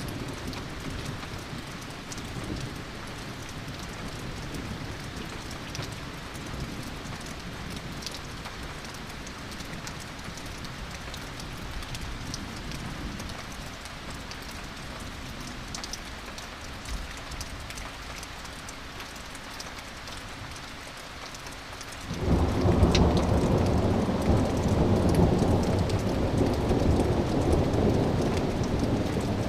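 Steady rain with scattered drop ticks, then about three-quarters of the way through a clap of thunder breaks in suddenly and rolls on as a loud, deep rumble.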